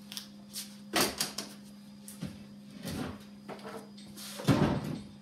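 Scattered knocks and clatter of parts being handled and set down while a big-screen Toshiba TheatreView TV is taken apart, at irregular times, with the loudest, deepest thump near the end.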